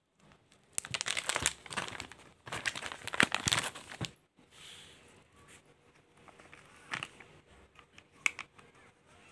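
Plastic packet crinkling and rustling as it is handled, in two busy stretches during the first four seconds, then only a few faint rustles and clicks.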